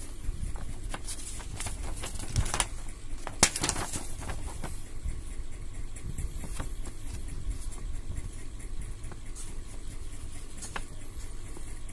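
Paper instruction sheet rustling and crackling as it is handled, with a cluster of crackles about two to five seconds in and a few single clicks later, over a low steady rumble.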